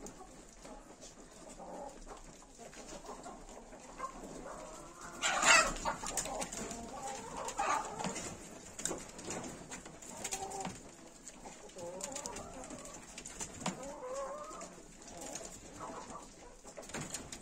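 Farmyard birds calling throughout with short wavering calls. Rabbits scuffle on a hutch's wire-mesh floor, with a sudden loud thump about five and a half seconds in.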